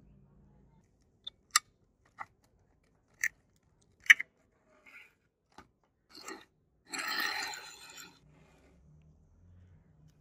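Small parts of a rusty die-cast model car being handled during disassembly: five or six sharp little clicks and taps of a screw and metal tools, then a longer gritty scraping rattle about seven seconds in as the body and chassis are moved apart on the wooden board.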